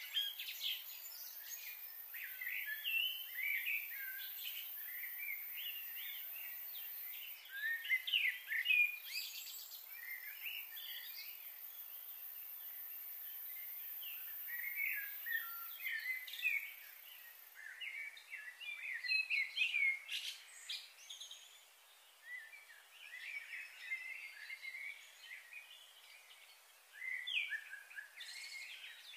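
Small songbirds chirping in clusters of quick, high notes, with short lulls between them. A faint steady high hiss runs under the first half.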